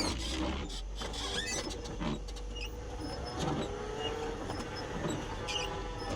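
A vehicle engine idling with a steady low rumble and scattered light clicks. About three and a half seconds in, a thin whine with several layered tones sets in and holds.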